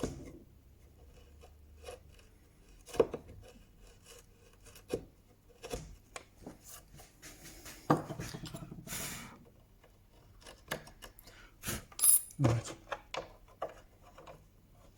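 Wood chisel paring out a shallow recess in wood: irregular small clicks and taps, with a longer scraping cut about eight seconds in and a sharper click near the end.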